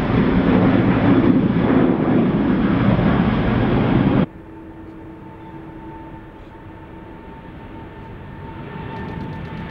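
Airbus A330 jet engines at full takeoff thrust, a loud steady roar as the jet climbs away, cut off abruptly about four seconds in. Then comes the quieter roar of a Boeing 777-300ER's engines on its takeoff roll, a steady whine over a low rumble that swells slightly near the end.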